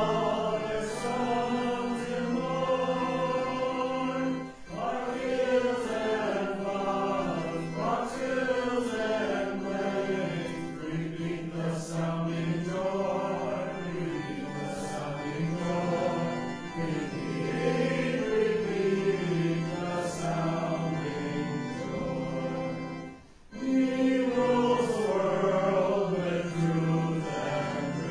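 Congregation singing a hymn together over steady held accompaniment notes, with brief pauses between phrases about four seconds in and again near 23 seconds.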